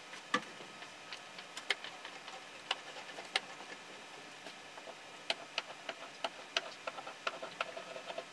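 Hand brayer inking a carved oak woodblock, a run of light clicks and ticks. The clicks are scattered at first and come much thicker from about five seconds in.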